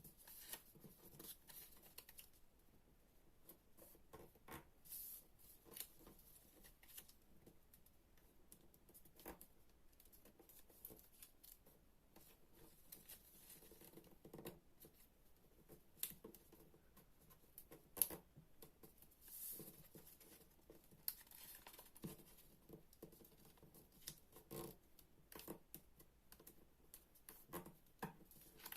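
Paper being handled and creased by hand in origami folding: faint, scattered rustles, scrapes and small taps, with a sharper crack about 18 seconds in.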